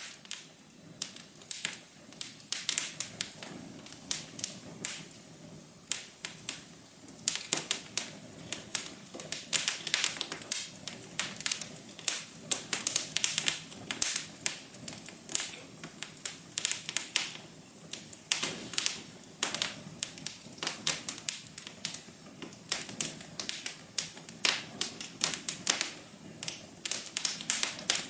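Wood fire crackling in a fireplace: irregular sharp pops and snaps, often several in quick succession, over a steady low hum.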